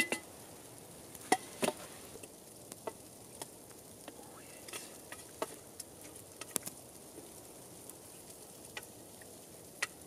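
A spoon scooping, scraping and knocking in a stainless steel cooking pot, serving stewed potatoes and sausage into a bowl: a string of separate clicks and knocks, one every second or so, over a faint hiss.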